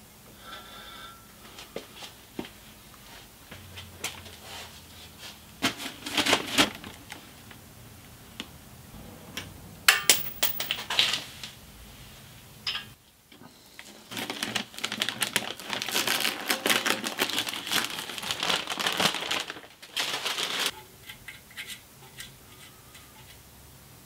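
Masking paper and tape being peeled off an engine block's oil pan rail and crumpled, a dense crackling and tearing that runs for about six seconds past the middle. Before that, a few sharp metal clanks and knocks as the block is turned over on its engine stand.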